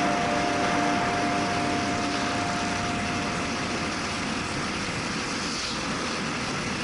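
Steady rushing wind and road noise from a moving motorcycle, with no clear engine note.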